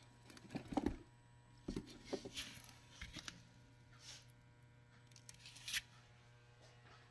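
Faint handling noise: a scattered string of short rustles and taps, loudest about a second in, over a steady low hum.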